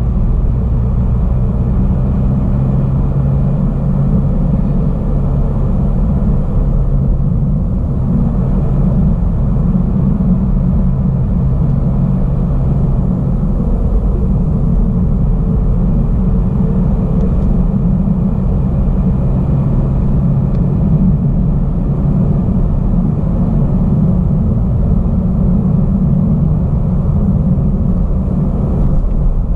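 Car driving at a steady speed, heard from inside the cabin: a steady low rumble of tyres on asphalt and engine hum.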